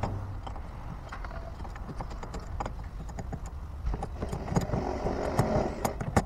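Hand tools clicking and knocking on metal at an outboard motor's mounting bracket, as light irregular clicks. About four seconds in, a denser run of clicks comes as a ratchet wrench is worked.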